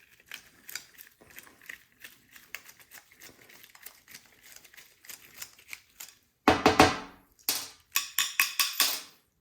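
A screwdriver and small metal carburetor parts clicking and tapping lightly as the main jet is unscrewed. About six and a half seconds in, two louder runs of rapid rattling clatter follow.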